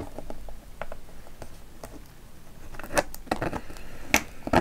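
Small metal parts of a Demko AD20.5 folding knife clicking and tapping as fingers work a pin and spring back into the handle, with sharper clicks about three and four seconds in.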